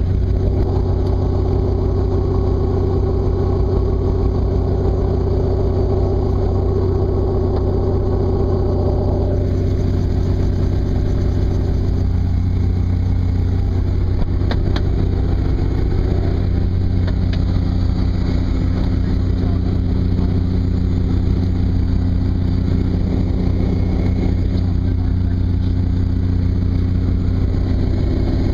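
Robinson R44 Raven II helicopter running steadily, its engine and rotor making a loud, deep drone. A higher tone in the drone drops away about nine seconds in.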